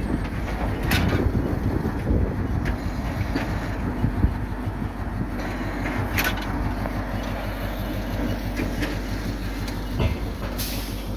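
An engine running steadily, with a few sharp clicks or knocks over it.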